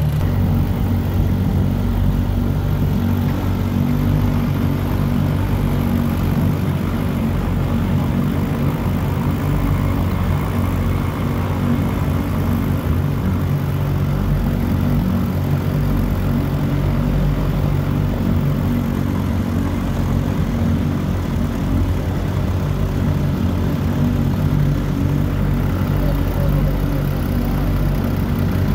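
Antique outboard motor running steadily at cruising speed, pushing a small aluminum boat along.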